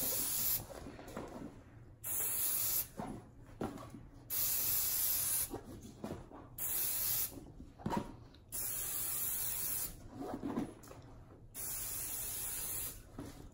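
Aerosol can of Apple Garde rain and stain repellent spraying in about seven short hissing bursts, each up to about a second long, with pauses between them.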